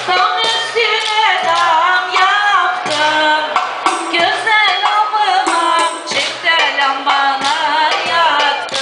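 Live Turkish folk dance music on an electronic keyboard: a wavering, pitch-bending melody over a steady clicking percussion beat.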